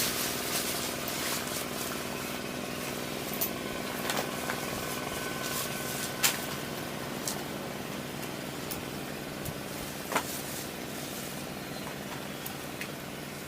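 An engine running steadily at a low, even hum, with a few sharp clicks, the loudest about six and ten seconds in.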